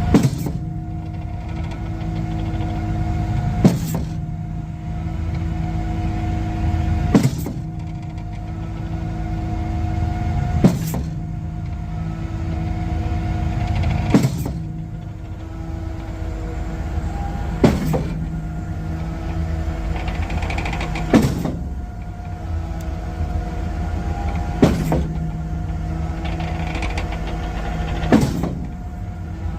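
Junjin 45 m concrete pump truck running at a steady drone, with a sharp clunk about every three and a half seconds, typical of the pump's hydraulic cylinders changing stroke while it cycles.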